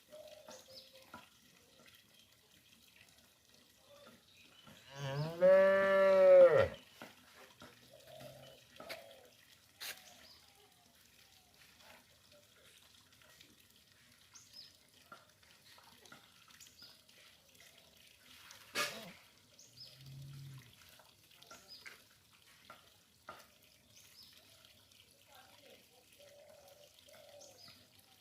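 A cow moos once, a single loud call of nearly two seconds whose pitch rises and then falls. Much later comes a short, faint, low call and a single sharp click.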